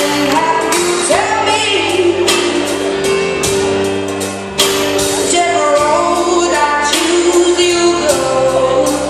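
Recorded music with a singer and a steady beat, playing loudly for a bodybuilder's posing routine.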